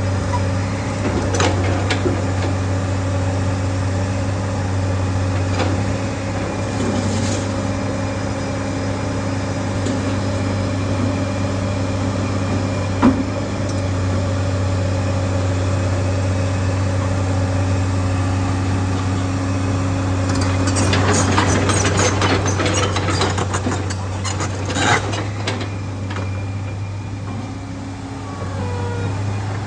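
Tracked excavator's diesel engine running at a steady pitch. A single knock comes about halfway through, and a spell of metallic clanking and rattling comes about two-thirds of the way in.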